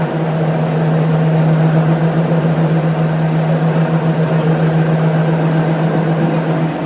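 A machine motor running with a steady, unchanging hum.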